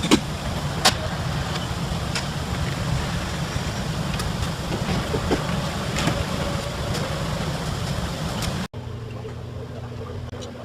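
A machine running steadily with a low hum and scattered sharp clicks and taps. It cuts off abruptly near the end, leaving a quieter, steadier hum.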